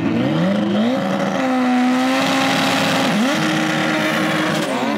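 Car engine revving hard: the pitch climbs, holds high, dips briefly about three seconds in, climbs again and falls away near the end.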